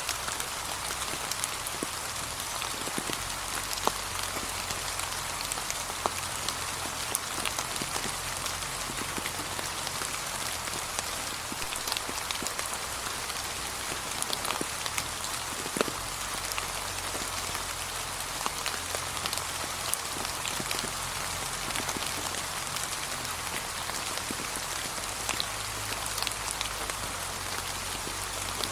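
Steady gentle rain falling on fallen autumn leaves: a soft, even patter with many separate drops tapping throughout.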